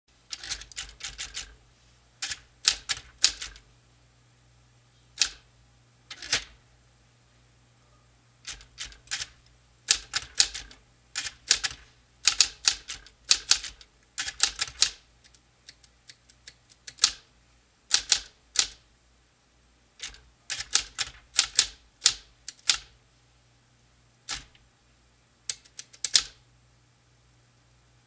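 Smith-Corona correction typewriter being typed on: its keys strike in quick clusters of sharp clacks, a word at a time, with pauses of a second or two between, over a low steady hum.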